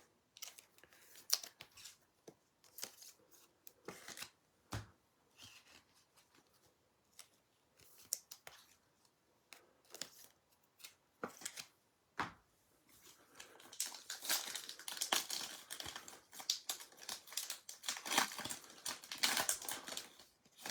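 A trading-card pack wrapper crinkling and tearing open. First come scattered light clicks and rustles, then a denser stretch of crinkling over the last several seconds.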